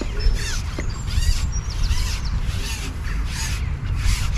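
Birds calling in a quick repeated series of short arched calls, about two a second, over a steady low rumble.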